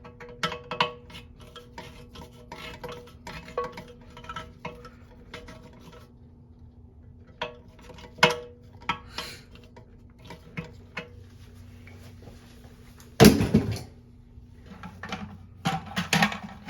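Hand work on a toilet's flush valve: a run of small clicks and taps of plastic parts and tools against the porcelain tank, with one louder clunk about 13 seconds in.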